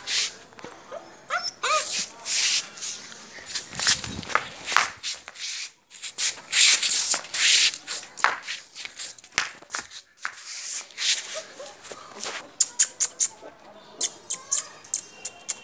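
A one-month-old German Shepherd puppy giving a few short high yips and whimpers, among repeated sharp scuffing and rustling noises.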